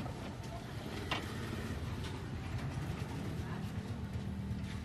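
Steady low rumble of street traffic, with a faint click about a second in.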